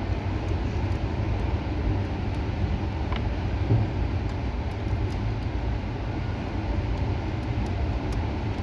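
Steady low rumbling background noise, with a few faint light clicks of small parts being handled while the steering wheel assembly is taken apart.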